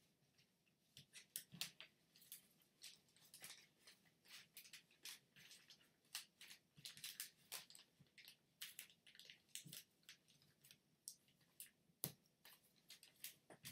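Origami paper rustling and crinkling as it is folded and creased by hand, in a run of faint, irregular crackles, with a sharper tick about twelve seconds in.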